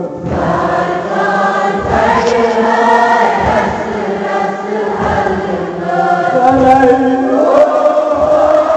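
Kashmiri noha, a Shia mourning lament, chanted in chorus, with a low thump about every second and a half beneath the voices.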